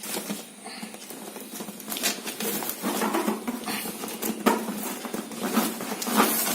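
Cardboard packaging being handled: an inner carton shuffled and pulled out of its outer box, with irregular scraping, rustling and light knocks that grow busier a couple of seconds in.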